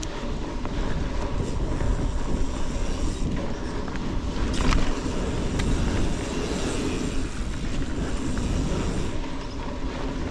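Mountain bike rolling over a dirt forest singletrack: a steady rumble of tyres and drivetrain with rattling from the bike, and a few sharp clacks over bumps.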